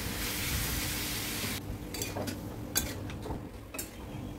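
Chicken keema and masala sizzling in an aluminium kadai while a metal spatula stirs it. The sizzle cuts off suddenly about a second and a half in, leaving a handful of separate scrapes and knocks of the spatula against the pan.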